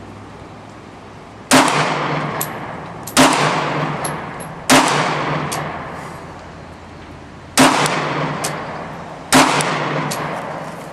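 Five pistol shots from a Glock 36 firing .45 ACP, spaced unevenly over about eight seconds, each cracking sharply and then echoing away. Light ticks follow some of the shots.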